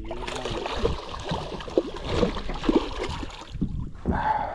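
Hooked redfish thrashing and splashing at the water's surface beside the boat, a run of irregular splashes that eases off near the end.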